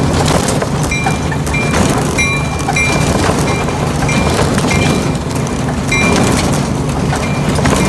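Ride-on backyard miniature train running along its track: a steady low rumble of the drive and wheels on the rails, with short high-pitched squeaks coming back again and again.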